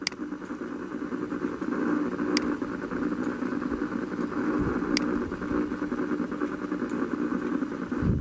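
Steady droning background noise, with a few faint sharp clicks a couple of seconds apart.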